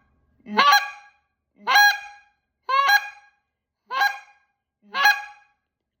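Five high clucks blown on a goose call, about one a second, each a short note that breaks sharply upward in pitch. The high cluck is made by opening the cupped hand a little over the call's end.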